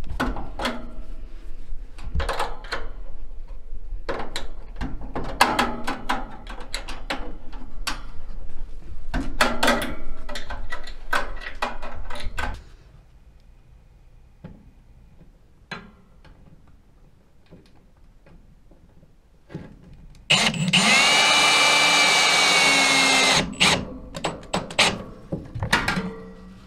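Cordless drill/driver runs in one steady whir of about three seconds, driving a screw through a furnace's sheet-metal mounting tab into the wall. Before it comes a long run of irregular metallic clicks and knocks as a hex-head screw is turned by hand with an open-end wrench, and a few clicks follow the drill.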